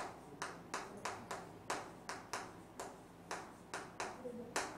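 Chalk writing on a chalkboard: a quick run of short taps and scratches as each stroke of the letters lands, about four a second.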